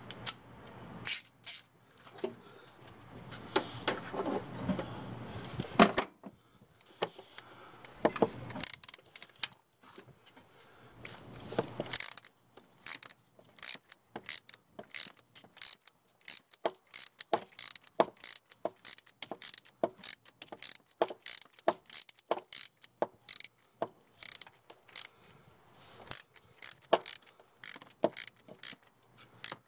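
Hand socket ratchet clicking while turning out the old engine coolant temperature sensor. About two to three sharp clicks a second through the last two-thirds, after some scattered knocks and tool handling.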